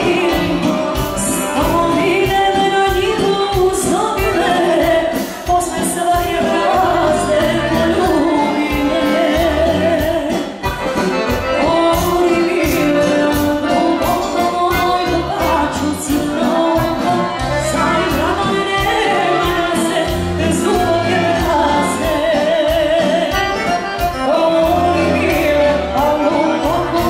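Live Serbian folk song in the old 'dvojke' style: a woman singing into a microphone with wavering ornaments, over a piano accordion and a steady beat.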